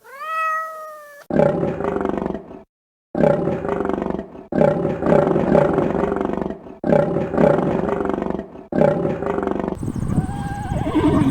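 A large animal roaring: about five long, rough calls in a row with short breaks between them, after a brief pitched call at the start. The sound changes near the end.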